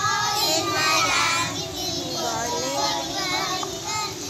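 A group of young children singing together in chorus, many voices at once.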